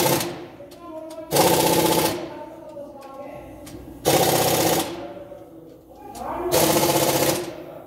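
Impact wrench run in four short bursts of rapid hammering, each under a second, with pauses between.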